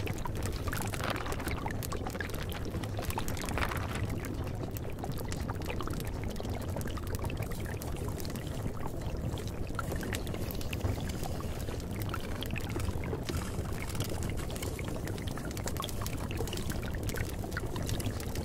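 Steady pouring, trickling water, used as the masking background track of a subliminal affirmation recording.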